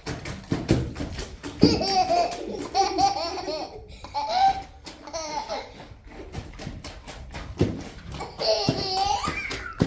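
A young child laughing in several bursts, with repeated light knocks or clicks underneath.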